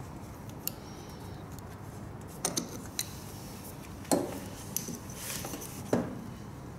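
Hands working the fuel line and inline fuel filter free from an ATV's fuel switch: scattered light metallic clinks and three louder knocks, about two and a half, four and six seconds in.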